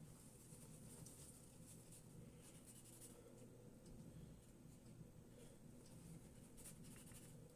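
Faint, irregular rubbing and scratching of a paper towel wiping a plastic model caboose shell dry.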